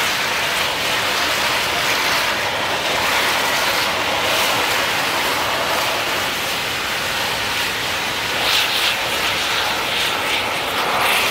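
Steam locomotive venting steam from its open cylinder cocks in a steady hiss as it pulls slowly away.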